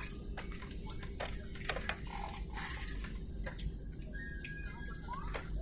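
Airliner cabin noise: a steady low rumble with scattered sharp clicks and rattles, and a few faint short squeaks.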